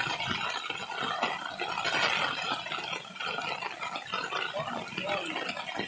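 Heavy monsoon rain falling steadily, a continuous hiss of rain on wet ground and vegetation.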